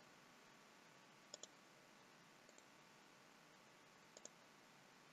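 Faint computer mouse button clicks over near silence: a quick double click about a second and a half in, a fainter click in the middle, and another double click near the end.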